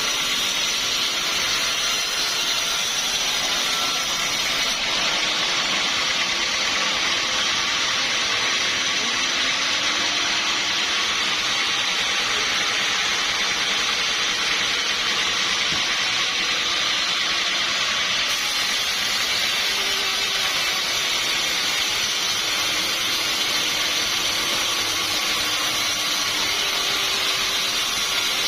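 Sawmill saw cutting through a log with a steady, even noise that stays at one level throughout.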